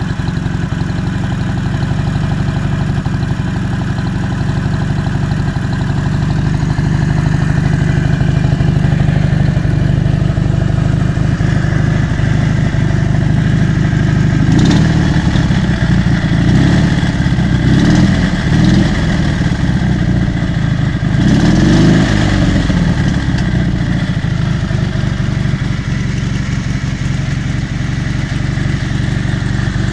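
Dnepr MT-11 motorcycle's opposed-twin engine running at idle, its throttle blipped several times about halfway through and once more shortly after, then settling back to a steady idle. It is running on its freshly repaired contactless electronic ignition, with the carburettors not yet adjusted.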